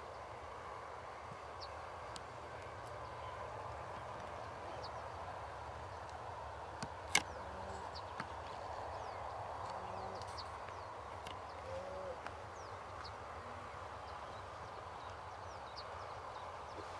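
Faint outdoor ambience: a steady low hiss with scattered faint, short bird chirps. A single sharp click sounds about seven seconds in.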